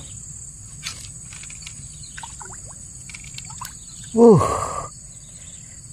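Steady high insect chirring with a few faint clicks. About four seconds in comes one short, loud call that slides steeply down in pitch.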